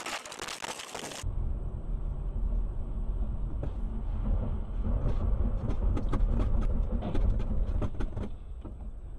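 A brief burst of hiss cuts off about a second in. Then comes the steady low rumble of a car driving, heard from inside the cabin, with scattered light clicks and ticks.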